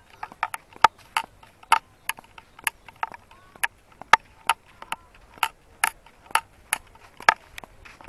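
Footsteps walking along a path: sharp, even steps about two a second.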